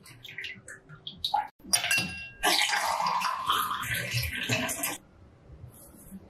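A silicone spatula scraping and pressing fruit pulp through a steel mesh strainer, with small scrapes and clicks. About two seconds in, red juice starts pouring into a tall glass. The pour runs steadily for about three seconds and stops.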